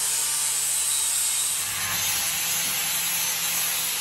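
Angle grinder with an abrasive grinding wheel grinding rust off a steel truck axle housing down to bare metal, a steady high grinding whir whose tone changes a little about halfway through.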